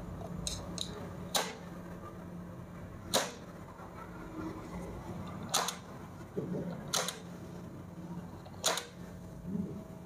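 Sharp mechanical clacks of a magnetic contactor and push buttons on an electrical control panel as the circuit is switched on and off. About five loud clicks come a second or two apart, over a faint steady hum.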